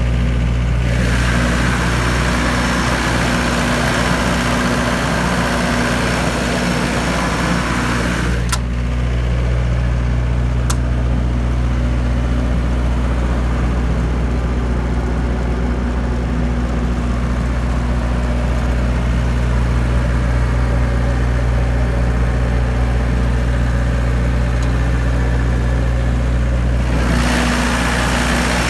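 Diesel generator with a Cummins engine running steadily at constant speed inside its sound-attenuating enclosure, a steady low hum with a hiss above it. There are two sharp clicks about a third of the way in, and the sound turns brighter near the end, where the enclosure door is open.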